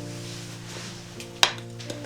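Soft background music with long held notes, and a single sharp click about one and a half seconds in.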